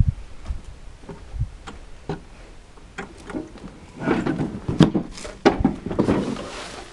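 Irregular clicks, knocks and rustling from handling, with a denser, louder stretch from about four to six and a half seconds in. The ride-on lawnmower's engine is not running.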